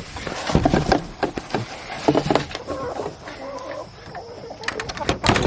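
Poultry clucking in short calls, among repeated knocks and clatter in a farm pen.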